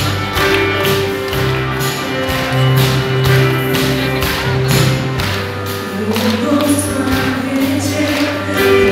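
Christian worship band playing live, with drums keeping a steady beat under sustained instruments.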